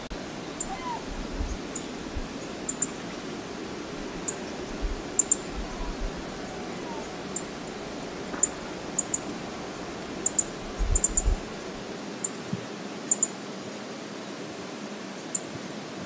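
Steady outdoor wilderness ambience: a continuous rushing noise of wind and flowing river water. Low gusts buffet the microphone now and then, and faint sharp high clicks are scattered throughout.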